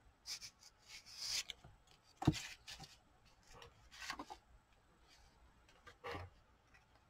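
Light paper rustling and soft taps as paper cut-outs are picked up and laid on a journal page, in short scattered handling sounds; the sharpest tap comes a little after two seconds in.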